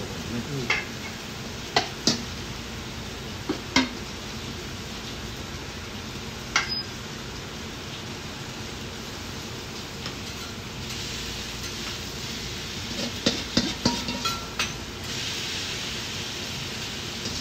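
Hot teppan griddle sizzling steadily, with scattered sharp metal clinks of utensils and a quick cluster of clinks near the end. Over the last couple of seconds the sizzle grows louder as cabbage okonomiyaki batter is laid onto the griddle.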